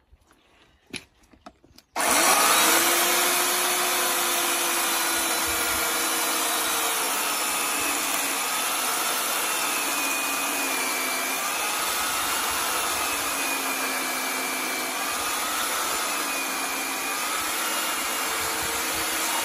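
Einhell EKS 1840/1 electric chainsaw (1.8 kW) with a new Stihl chain, switched on suddenly about two seconds in and cutting through a log. Its motor pitch repeatedly dips and recovers as the chain bites into the wood.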